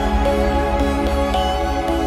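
Background music: electronic, new-age-style instrumental with sustained notes over a steady low pulse.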